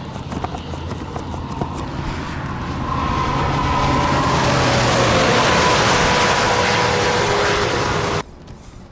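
A vehicle on a wet road: tyre and wind noise that swells about three seconds in, carrying a faint, slowly falling whine, then cuts off abruptly near the end.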